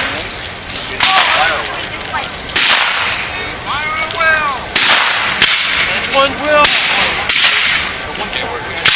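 Black-powder rifle muskets firing blanks in a skirmish, about seven sharp cracks at irregular intervals, each with a short fading tail.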